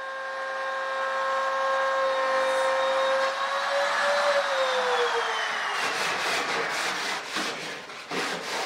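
Handheld router cutting aluminium sheet along a straightedge: a steady high whine over cutting noise. About four seconds in the pitch falls away as the router winds down, followed by a run of sharp clicks and knocks.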